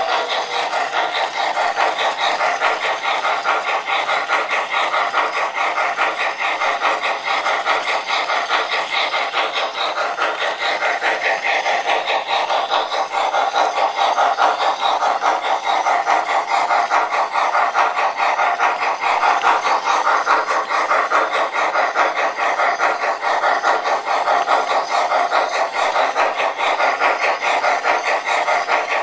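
O-gauge MTH Climax model logging locomotive running with its train: a steady, rapid, raspy chuffing from the engine's steam sound effect, together with the rolling of wheels on the three-rail track.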